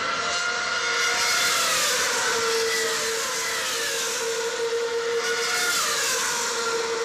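Formula One car engines from a pit stop video, played over a conference hall's loudspeakers. Engine notes fall in pitch twice, and a steady high engine tone grows stronger from about two seconds in.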